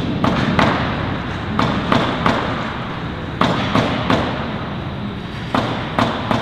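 Sharp knocks in groups of two or three, about a third of a second apart, over a steady background noise.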